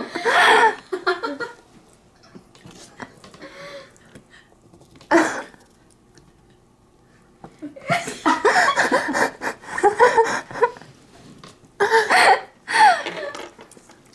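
Two women laughing and breathing hard with their tongues out, their voices garbled into giggles and breathy sounds, in several bursts with quiet gaps between.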